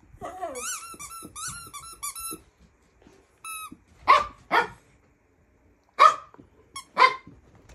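A squeaky dog toy squeaking in a quick run of short chirps for about two seconds, with one more squeak a second later. Then a dog barks four times, sharp and loud, in the second half.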